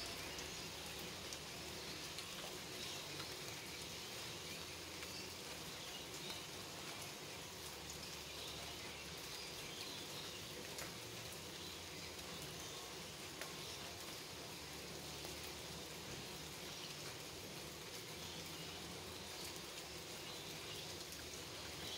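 Steady rain falling on shrub leaves and grass, with many small drop ticks.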